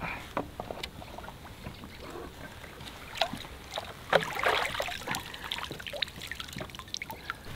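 Water splashing and trickling as a 3D-printed hydrofoil mast with its motor pod is lifted out of a lake, with scattered light knocks of it being handled; the louder splashing comes about four seconds in. The mast has broken.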